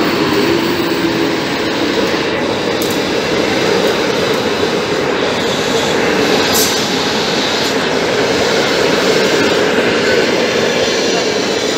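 A departing passenger train hauled by an EP07 electric locomotive going past. The locomotive passes at the start, then its coaches roll by with a steady, loud noise of wheels on the rails.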